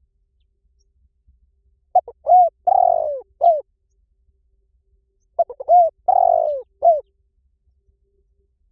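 Spotted dove cooing: two phrases of about four notes each, a few seconds apart.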